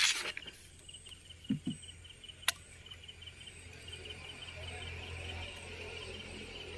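Crickets chirping in a steady pulsing trill, with a sharp click at the start and another about two and a half seconds in, and a couple of soft low thuds just before.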